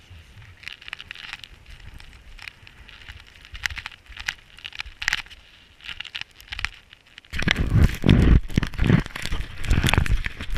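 Camera handling noise: light crackling and scattered clicks, then from about seven seconds in loud rubbing and knocks as a hand grips the camera.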